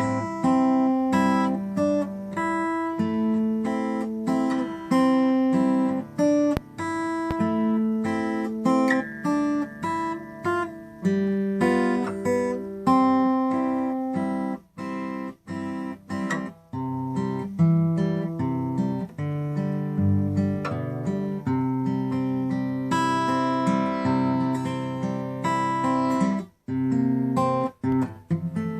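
Acoustic guitar playing a slow tune, single melody notes over plucked bass notes.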